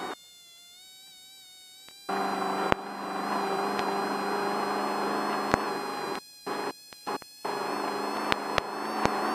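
Steady, buzzy drone of an off-road race vehicle at race pace, heard through the crew's intercom, with sharp clicks now and then. It cuts out for about two seconds at the start and in a few short gaps six to seven seconds in.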